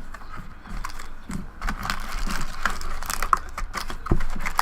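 Irregular light clicks and taps from a cardboard hobby box of trading cards and its packs being handled and opened.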